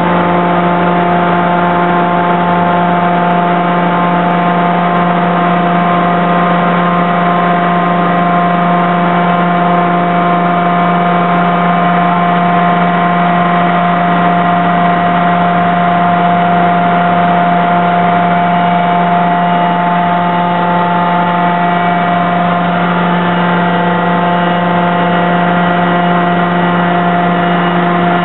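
Steady machine drone of a large hydraulic die forging hammer's hydraulic power unit running, a low hum with several steady whining tones above it. No hammer blows are struck.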